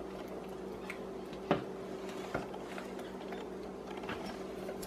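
Wooden spoon stirring a thick, gooey mixture in a stainless steel saucepan: soft scraping with a few light knocks against the pot, the sharpest about a second and a half in, over a steady low hum.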